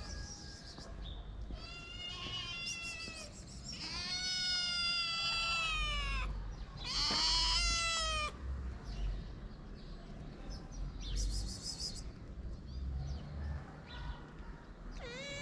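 Kitten meowing repeatedly: several calls in the first half, the longest one falling in pitch, then fainter cries later on.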